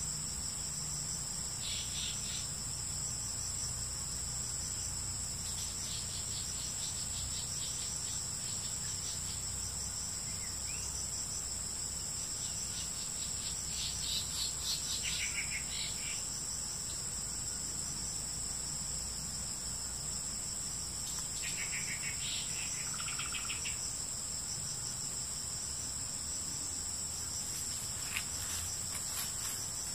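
Insects droning steadily at a high pitch, with several shorter rapid trills coming and going over the drone.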